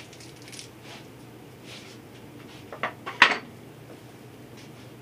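Two or three sharp clinks of small hard objects being handled, about three seconds in, the last the loudest, over a low steady hum.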